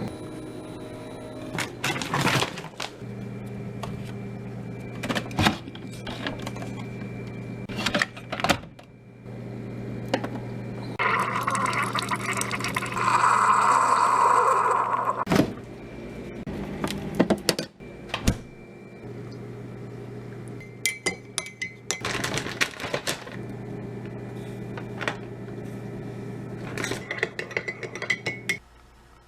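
Scattered clinks and knocks, as of dishes being handled, over a steady electrical hum, with a louder stretch of noise about midway.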